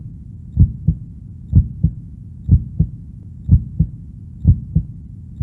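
Heartbeat sound effect: paired low lub-dub thumps repeating about once a second over a low steady hum.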